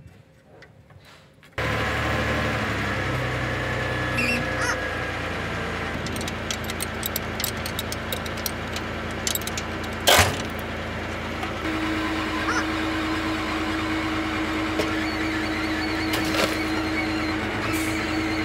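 Faint ticking gives way abruptly, about a second and a half in, to an engine running steadily in the workshop, with scattered metal tool clinks. One sharp metallic knock comes about ten seconds in, and a steady hum joins about two-thirds of the way through.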